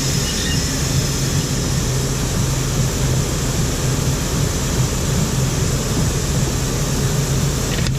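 Case IH tractor's diesel engine running at a steady speed, heard as an even drone with no change in pitch.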